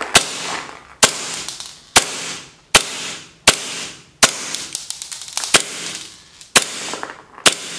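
Army R27 gas blowback airsoft pistol (1911 type) firing single shots, about nine sharp cracks roughly one a second, each with a short fading tail. These are test shots showing the pistol working normally, without gas leaks, after its magazine-base and valve O-rings and its piston were replaced.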